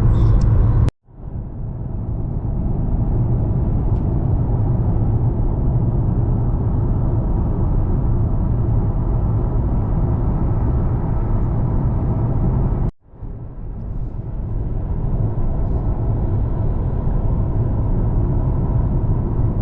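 Road and engine noise of a car driving at speed, heard from inside the cabin: a steady low rumble that cuts out abruptly twice and fades back in.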